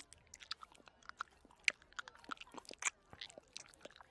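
Soft, irregular wet clicks and smacks of a cartoon dog's mouth and tongue as he works a pill around, trying to swallow it.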